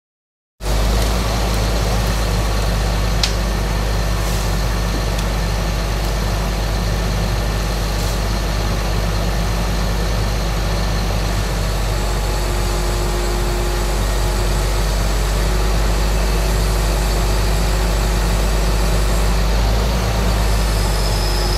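Bucket truck's engine running steadily at idle, a loud, even low drone, with a single sharp click about three seconds in.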